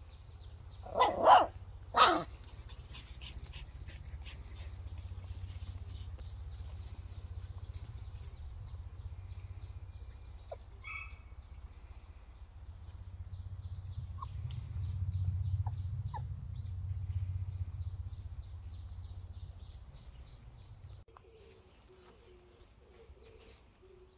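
Jindo puppy barking twice in quick succession, about one and two seconds in, with a low rumble underneath.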